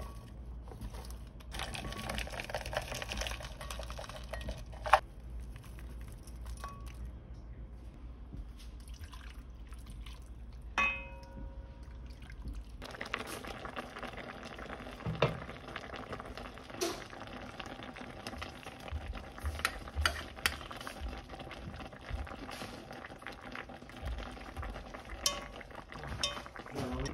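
Cooking at a pot of braised flounder: sliced onion and zucchini sliding off a board into an enamelled pot, a sharp knock about five seconds in and a ringing clink about eleven seconds in. From about thirteen seconds in the spicy sauce simmers, with a metal spoon clinking and scraping against the pot as sauce is spooned over the fish.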